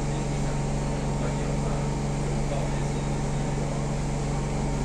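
Siemens C651 metro train standing with its doors open, its air-conditioning and onboard equipment giving a steady low hum.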